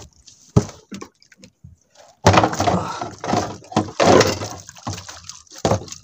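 A plastic basket full of freshly caught squid being tipped into a plastic box: a loud, wet rush of squid and water sliding and splashing in for a few seconds, after a single knock about half a second in.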